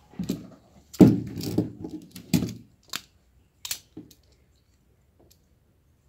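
Handling of a network cable and a plastic hand tool being picked up from the table: a run of rustles, knocks and clicks over the first four seconds, loudest about a second in.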